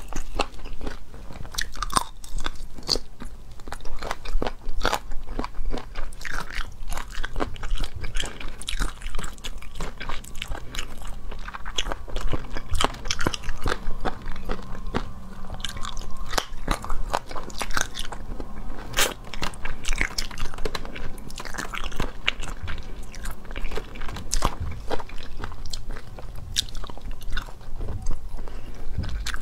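A person biting and chewing braised chicken feet close to the microphone: irregular crunches and wet clicks of skin and cartilage between the teeth.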